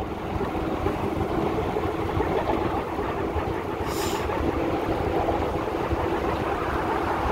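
Steady rush of wind on the microphone over the rumble of bicycle tyres rolling on a concrete path, with a faint hum underneath. A brief click comes about four seconds in.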